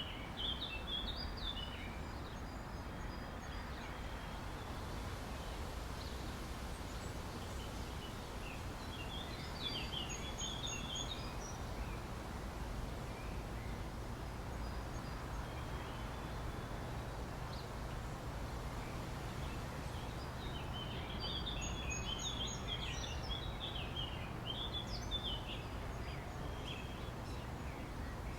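Outdoor park ambience: a steady low background rumble of distant traffic or city noise, with small birds chirping in short bursts near the start, around a third of the way in, and again in the last third.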